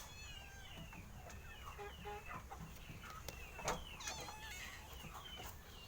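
Chickens calling: many short, high chirping calls overlapping one another, with a single sharp knock about four seconds in.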